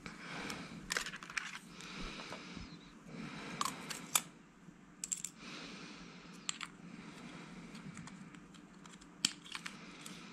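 Metal flashlight parts and multimeter test leads being handled and fitted together: scattered sharp clicks and clacks, a few at a time, as pieces touch and the body sections are screwed up.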